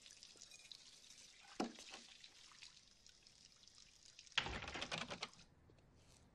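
Water running into a kitchen sink as dishes are washed, a soft hiss with a sharp knock about a second and a half in. About four seconds in, a louder burst of dense clattering and splashing lasts about a second, then fades.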